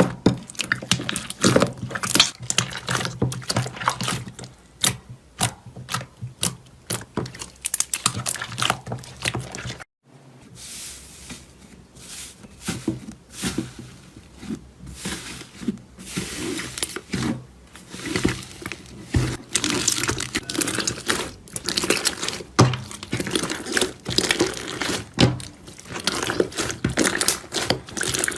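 Slime being worked by hand, squeezed and poked, giving dense, irregular sticky clicks, pops and crackles. The sound breaks off for a moment about ten seconds in, then carries on.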